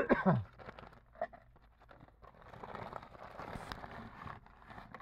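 Plastic sheeting on a crawl-space floor rustling and scraping as a person crawls over it, with a short low grunt-like voice sound at the start and a single knock about a second in.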